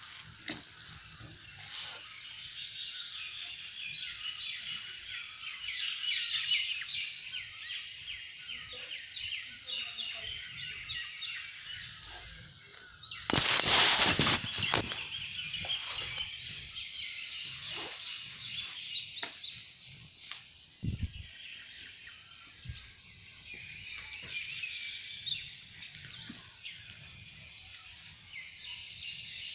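Outdoor chorus of birds chirping rapidly and continuously, over a steady high hiss. About thirteen seconds in, a loud rustling burst of handling noise on the phone's microphone lasts a second or two.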